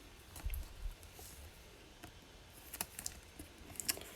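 Faint clicks and taps of trading cards being handled and set down, with a soft low bump about half a second in and two sharper clicks near the end.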